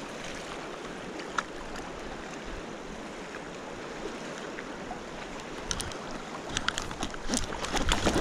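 Steady rush of a fast-flowing river. A single click comes about a second and a half in, and near the end a growing run of clicks and knocks from rod and reel handled close to the microphone.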